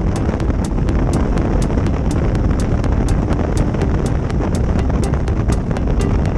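Wind rushing over the microphone on a moving Yamaha Super Ténéré XT1200Z, with the low rumble of the motorcycle and road noise at road speed. A light, regular high ticking runs through it, about four times a second.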